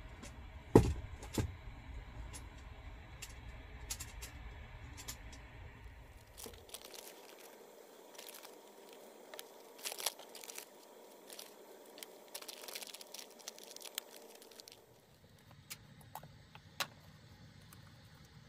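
Handling sounds from making pour-over coffee. A knock about a second in as the kettle is handled, then stretches of crinkling and tearing packaging, with light scattered taps, as the coffee bag and a paper drip-filter pouch are opened and the filter is fitted onto a cup.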